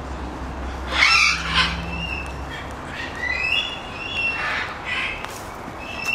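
Parrots calling: a harsh squawk about a second in, then a run of short whistled chirps that slide up and down in pitch, and another squawk near the five-second mark.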